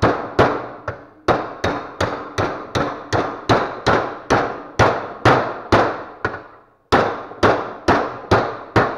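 A hammer strikes the steel drawer slide of a Craftsman tool box drawer over and over, about three blows a second, each with a short metallic ring. It pauses briefly about two-thirds of the way through, then carries on.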